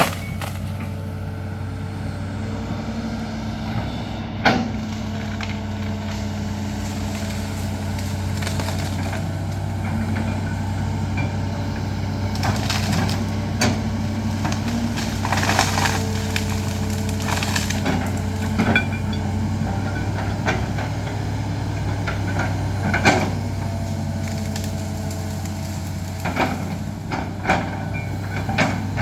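Large excavator's diesel engine running steadily under load, with sharp cracks of breaking wood now and then as trees and branches are pushed over.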